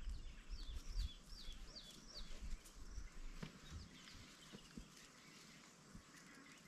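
African wild dogs twittering: a run of about six short, high, falling chirps in quick succession, then fainter chirps.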